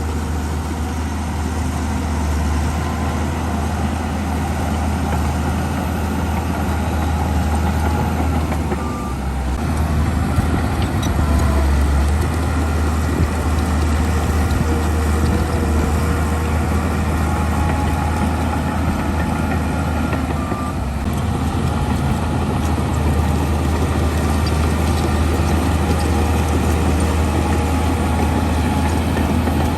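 Heavy earthmoving machinery's diesel engine running steadily, with a deep low hum, and a few short high-pitched tones.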